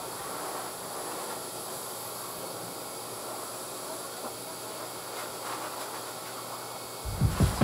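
Steady airy hiss of a high-velocity dog grooming dryer blowing through its hose, with a low hum beneath it. Music with a strong beat cuts in near the end.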